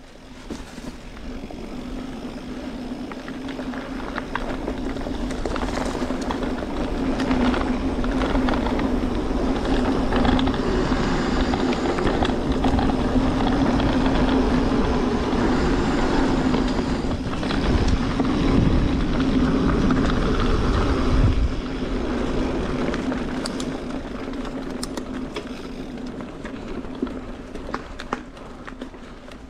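Mountain bike riding down a dirt trail: rolling tyre and wind noise build up over the first several seconds, stay loud, then ease off after about twenty seconds. A steady hum runs underneath, and a few sharp clicks come near the end.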